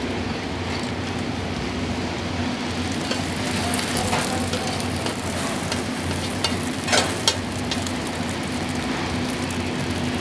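Burger frying in oil on a street stall's pan, a steady sizzle with scattered clicks of the cook's utensil, and two sharp knocks about seven seconds in.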